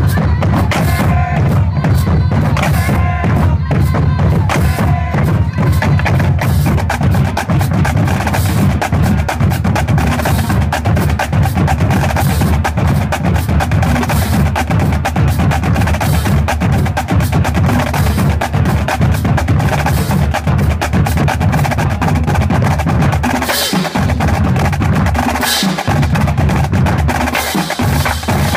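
High school marching percussion playing: fast snare drum strokes and rolls over bass drums, with a few held pitched notes in the first several seconds.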